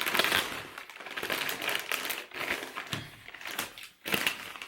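A blade cutting through the packing tape and cardboard of a parcel, with irregular scraping and crinkling of the box and wrapping.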